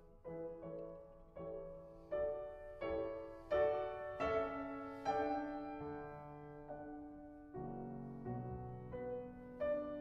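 Soft background piano music: single notes and chords struck every half second to a second, each ringing and fading.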